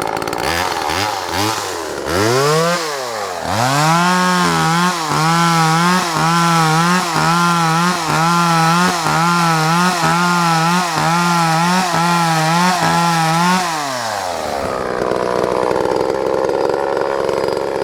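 Vintage Homelite Super 2 two-stroke chainsaw running. It idles, is revved twice, then held revving with its pitch wobbling up and down about one and a half times a second, and drops back to a steady idle for the last few seconds.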